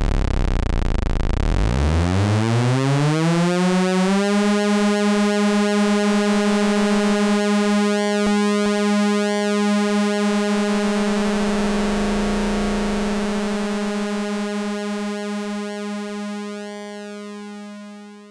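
Eowave Orage analog oscillator sounding a buzzy synthesizer tone: it starts low and rough, glides up in pitch over the first few seconds, then holds one steady note while its timbre shifts, and fades out near the end.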